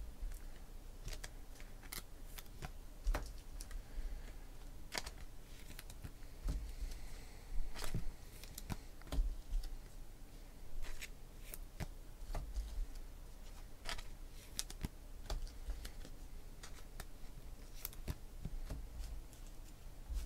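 Trading cards handled and sorted by hand: irregular light clicks and taps at uneven intervals, with dull low bumps against the table.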